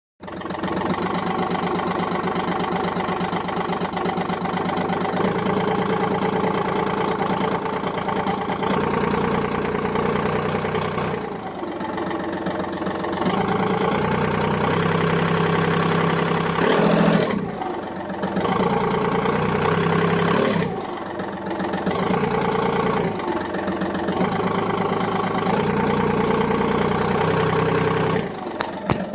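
Turbocharger whistle over a 1.4 TDI three-cylinder diesel engine running, its revs rising and falling several times. The owner links the whistle to removing the diesel particulate filter and disabling the EGR system, and the turbo shaft has no play.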